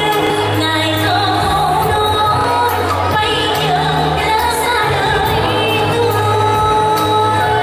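Woman singing into a handheld microphone over amplified backing music, holding long notes.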